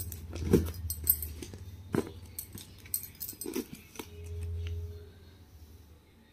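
Handling noise: a few light knocks and clicks as the decorated cardboard box and the phone are handled, over a low rumble that swells briefly about four seconds in.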